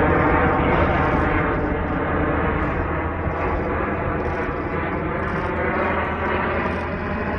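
Jet engines of the Snowbirds' CT-114 Tutor formation flying overhead: a loud, steady whine of many ringing tones over a low rumble, shifting slowly in pitch as the aircraft move.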